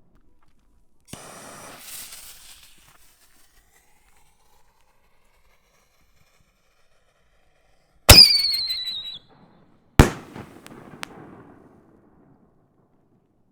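6-inch firework canister shell with a whistling tail: a loud bang with a high whistle that drops slightly and holds for about a second, then a second loud bang about two seconds later that trails off in a rolling rumble. A brief crackling burst comes about a second in.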